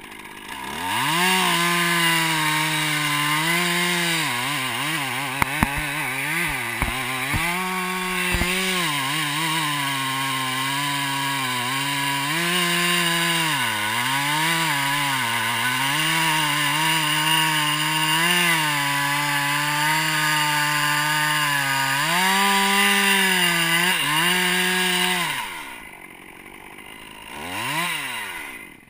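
Stihl chainsaw revving up and cutting through a red oak stem under load, its pitch dipping and recovering as the chain bites. About 25 seconds in it drops back to idle, gives one short rev, then cuts off near the end.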